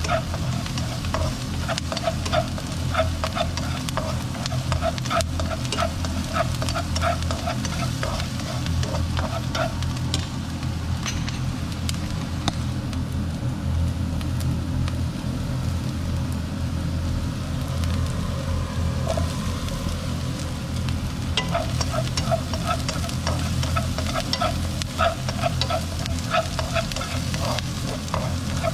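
Diced onion and shallots sizzling in oil in a nonstick wok, with wooden chopsticks stirring and scraping them in quick rhythmic strokes. The stirring thins out in the middle and picks up again near the end, over a steady low hum.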